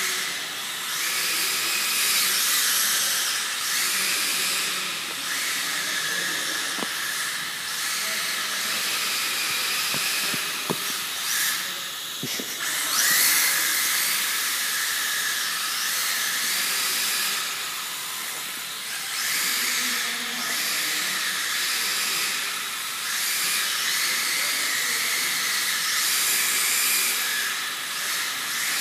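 Small electric RC model aircraft flying, its motor and propeller giving a high-pitched whine that swells and fades every few seconds with the throttle, with a few faint ticks in between.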